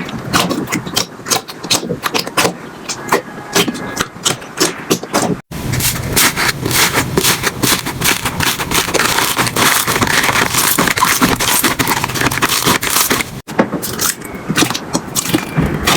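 Slime being squished and poked by hand, making rapid sticky clicks and crackling pops. The sound cuts abruptly twice, and between the cuts the crackling is denser and more continuous.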